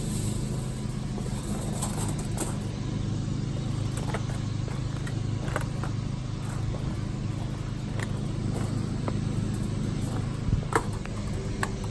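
Truck engine running steadily with a low hum, with a few light clicks and knocks, two of them a little sharper near the end.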